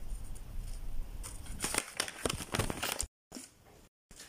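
Crinkling and sharp clicks of a paper dragon puppet being swung about by hand, over a rumble of handling on the phone's microphone. The clicks come thickest two to three seconds in; after that the sound cuts out to dead silence several times in short gaps.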